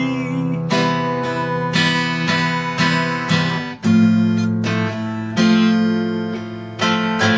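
Acoustic guitar strumming chords, each chord struck and left to ring before the next.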